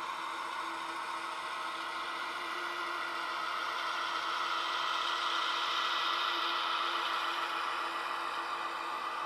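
Sound decoder of a model V60 diesel shunting locomotive playing its diesel engine sound through the model's small speaker, running steadily and growing a little louder in the middle as the loco passes.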